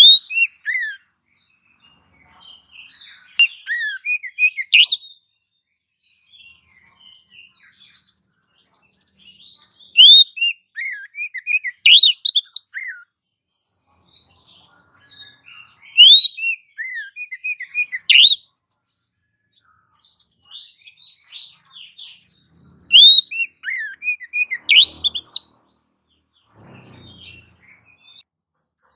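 Small songbird chirping in a bird-lure (pikat) call: quick, sharp chirps and up-and-down whistled notes in loud bursts that come back about every six seconds.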